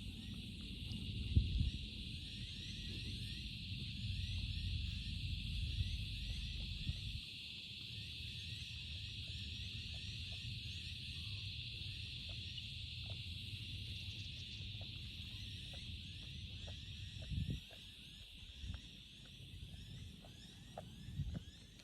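A kangaroo hiccuping: faint short clicks every second or two, with a few stronger short low thumps near the end. Under it runs a steady high-pitched drone, with a low rumble during the first few seconds.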